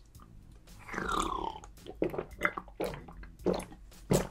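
A person drinking a small bottle of yogurt drink: a sip about a second in, then a run of about five short gulping swallows, the last the sharpest.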